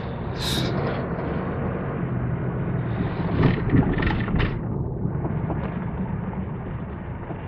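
Steady low rumble of road and engine noise inside a slowly moving car. A few sharp knocks come about halfway through.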